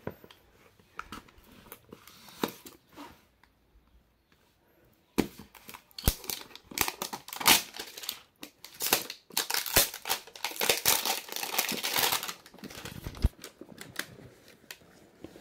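Clear plastic shrink-wrap being torn and crinkled off a smartphone box, with sharp crackles and rustles. The first few seconds hold only light taps of box handling; from about five seconds in the crackling is dense and loud, easing off near twelve seconds.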